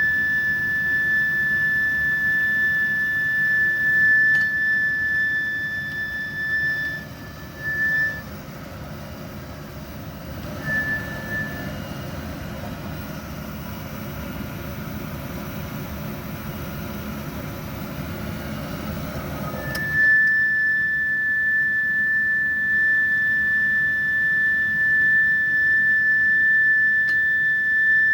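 Lennox EL180 gas furnace giving a steady high-pitched squeal over a low rush of air. The squeal drops out after about seven seconds, chirps back twice briefly, then cuts back in suddenly about twenty seconds in and holds.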